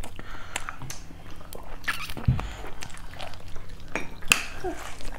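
Eating at the table: chewing on fried chicken wings, with scattered light clicks of cutlery and dishes and a soft low thump about two seconds in.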